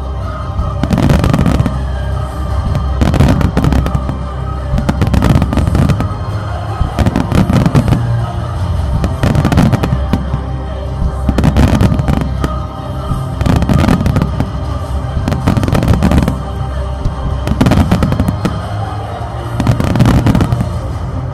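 Fireworks bursting in a regular series, a cluster of sharp bangs about every two seconds, over the music that accompanies the display.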